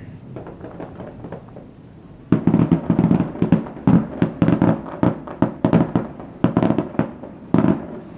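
Distant fireworks: a few faint reports at first, then from about two seconds in a rapid string of sharp bangs and crackles, several a second, that stops suddenly near the end.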